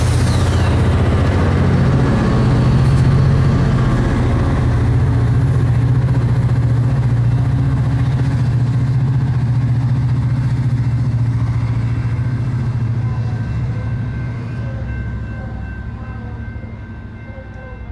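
Amtrak California bilevel passenger train departing, its diesel locomotive at the rear running with a steady low drone along with wheels rolling on the rails. The sound fades over the last several seconds as the train draws away.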